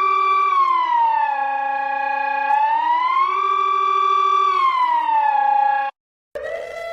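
Emergency alert siren tone for a national emergency in Egypt. It slides slowly up and down between a higher and a lower pitch, holding each for about a second, and cuts off about a second before the end. After a brief gap a different, steady alarm tone starts.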